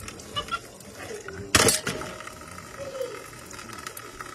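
Water splashing in a kitchen sink as dishes are handled in a stainless steel bowl of soapy water, with one loud metallic clank about a second and a half in.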